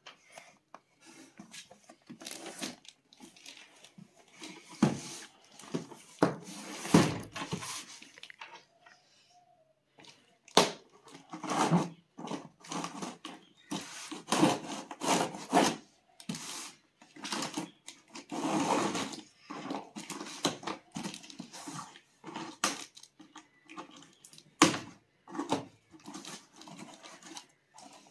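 A cardboard box being opened by hand: tape torn and peeled, and flaps and packing rustling and scraping in irregular bursts, with a few sharp knocks.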